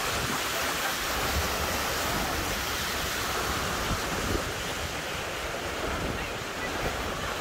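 Steady rushing noise of rain and floodwater around a car moving slowly through a flooded street, with wind buffeting the microphone.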